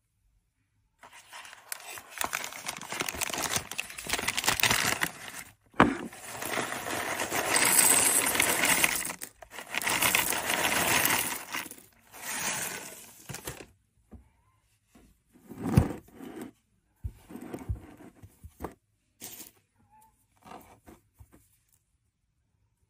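In-shell sunflower seeds pouring out of a plastic bag onto a plate: a dense rattling in several long pours, broken by short pauses, with the bag crinkling. After that come scattered lighter clicks and rustles as the seeds and bag are handled, with one sharp knock.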